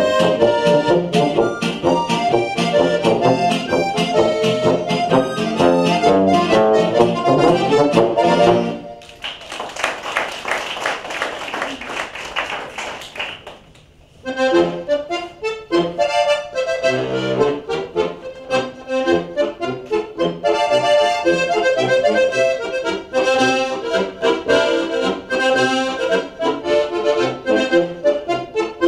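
Diatonic button accordion (Slovenian frajtonarica) playing a lively folk tune with band accompaniment. The tune ends about nine seconds in and is followed by a few seconds of applause. The accordion starts a new piece about fourteen seconds in.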